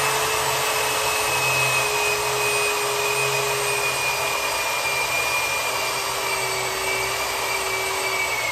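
RIDGID 600 hand-held power drive running in forward, turning a die head to cut threads on 1-1/4-inch pipe: a steady electric motor whine whose pitch drops a little toward the end as the die cuts.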